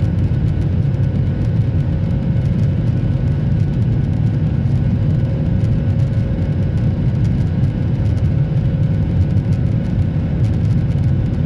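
Airliner engine noise heard from inside the passenger cabin in flight: a loud, steady rumble with a faint steady whine above it.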